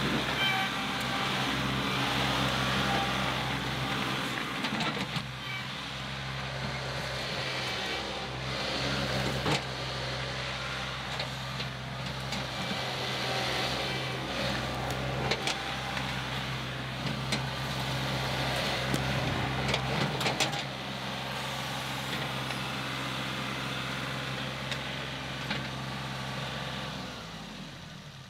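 John Deere 2038R compact tractor's three-cylinder diesel engine running steadily under load as the loader bucket, fitted with a tooth bar, digs and pushes through a dirt pile, with scattered knocks and rattles. The engine fades in the last second or so as the tractor pulls away.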